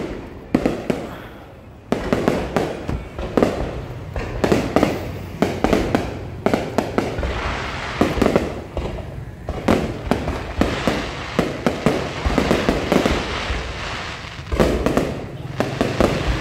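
Fireworks display going off: one bang just after the start, then from about two seconds in a rapid, irregular series of bangs and booms, fired in volleys, with crackling between them.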